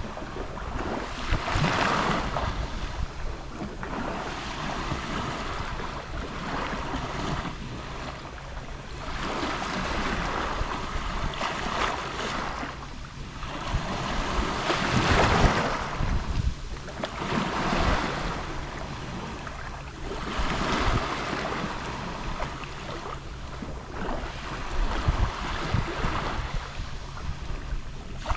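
Small sea waves lapping on a Mediterranean shore, a continuous wash that swells and falls back every few seconds, the largest swell about halfway through.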